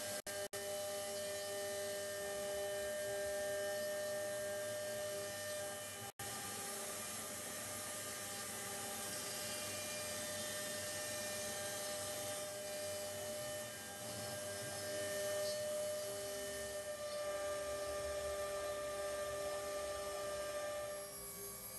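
Home-built CNC router's spindle running steadily while the machine cuts, a constant whine of several steady tones over a noisy hiss, broken by two very brief dropouts near the start and about six seconds in.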